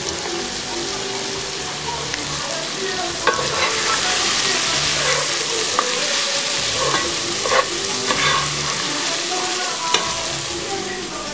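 Food sizzling in hot oil in a pan, with a few sharp knocks of a utensil as it is stirred. The sizzle swells a few seconds in and eases off near the end.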